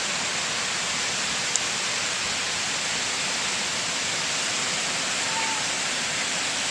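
Heavy, wind-driven storm rain pouring down as a steady, dense hiss, with one short tick about a second and a half in.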